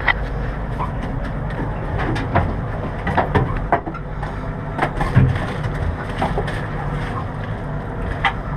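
Irregular knocks and clatter of things handled on a boat, the loudest a little past the middle, over a steady low hum.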